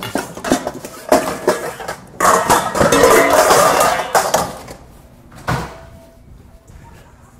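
Metal mixing bowls and kitchenware clattering as a big bowl is fetched: scattered knocks, then a couple of seconds of loud clattering in the middle, and one more clunk near the end.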